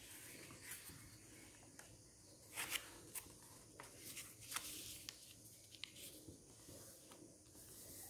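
Faint rustling and crinkling of origami paper being folded and creased by hand, with scattered short, sharp crackles, the loudest about two and a half seconds in and again around four and a half seconds in.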